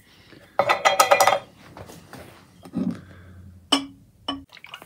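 Clinking and rattling of glass and metal: a steel adjustable wrench knocking about inside a glass jar as it is set up to soak in an acetone and ATF mix. A flurry of clinks about half a second in, then a dull knock and two sharp ringing clicks near the end.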